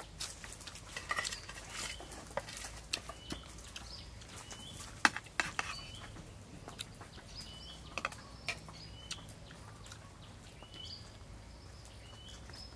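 Eating sounds: a metal spoon clinking and scraping on a metal plate of braised pork leg, and the wet clicks of chewing, in irregular sharp ticks with the loudest about five seconds in. A bird repeats a short chirp every second or so behind them.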